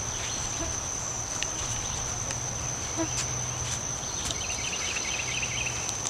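Steady high-pitched trill of insects, cricket-like, with faint scrapes and clicks from gloved hands digging potatoes out of loose soil. A brief chirping comes in about four seconds in.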